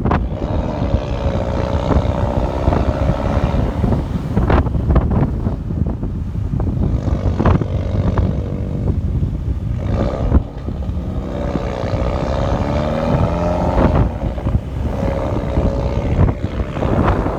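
Low rumble of a moving car heard from inside the cabin, with heavy wind buffeting the microphone and a few knocks.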